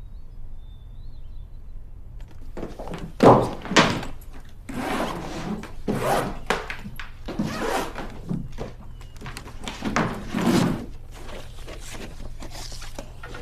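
A silver hard-shell carry case is set down with two loud thunks about three seconds in. Then comes a run of knocks and rustles as it is opened and handled.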